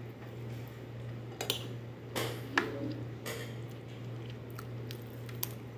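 A person eating grilled chicken and rice, with close chewing and wet mouth sounds. A few sharp taps of a spoon and fork on a ceramic bowl are scattered through it, over a steady low hum.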